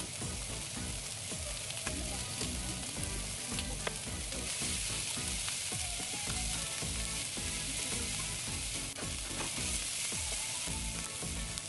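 Sliced onion, green pepper and sausage sizzling steadily as they stir-fry in olive oil in a nonstick frying pan, with occasional clicks of wooden chopsticks against the pan.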